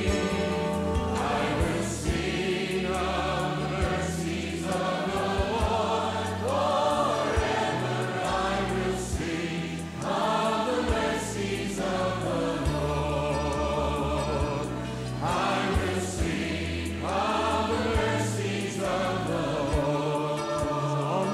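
Choir singing a contemporary praise and worship song with instrumental backing.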